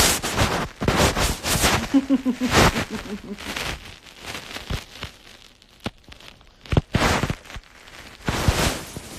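Irregular bursts of crackling, bumping handling noise close to the microphone.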